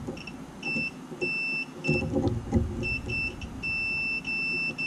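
Digital multimeter's continuity beeper sounding as its probes touch the relay terminals: short broken beeps as the contact makes and breaks, then longer, steadier beeps from about three and a half seconds in. The beep shows continuity between terminals 30 and 87A, the relay's normally closed contact. Light clicks and clatter of the probes being handled are heard along with it.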